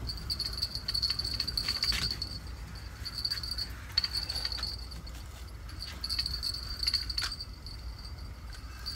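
High-pitched trilling of night insects, coming and going in stretches of a second or two, with scattered light clicks and knocks from fishing gear being handled.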